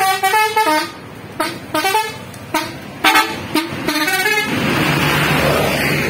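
Tour bus telolet basuri multi-tone horn playing a quick tune of stepped notes in several short phrases, stopping about four and a half seconds in. It is followed by a loud rush of engine and road noise as the bus goes by.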